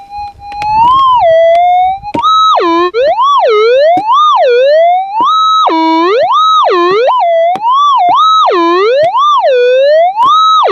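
Minelab GPZ 7000 metal detector's audio: a steady threshold tone gives way, about two seconds in, to a loud warbling signal. The pitch swings up and down about once a second as the coil is swept back and forth over a buried target being pinpointed.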